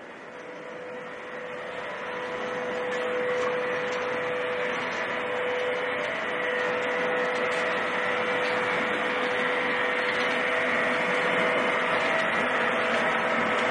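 Wood pellet production line machinery running: a steady mechanical noise with a steady whining hum. It grows louder over the first three seconds, then holds level.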